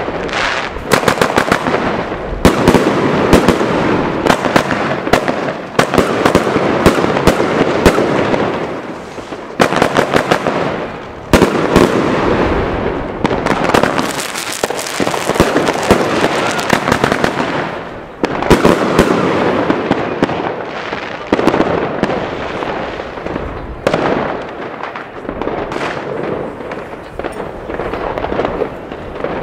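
Consumer firework cake (multi-shot battery) firing shot after shot amid dense crackling, in runs broken by short pauses. There is a single sharp bang about eleven seconds in, and it runs quieter after about twenty-four seconds.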